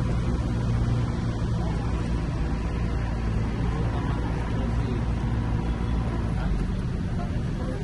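Tour boat's motor running steadily, a continuous low hum.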